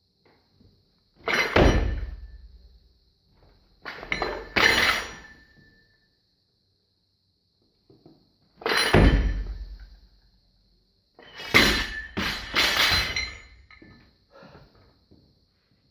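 A 75 kg barbell loaded with rubber bumper plates hitting the platform floor: four heavy thuds, each with a clatter of the bar and plates that dies away over a second or so, and a smaller knock near the end as it settles.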